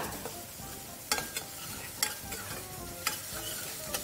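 Chopped onions and garlic sizzling as they fry in clarified butter in a stainless-steel pan. A metal spoon stirs them, clinking sharply against the pan about once a second.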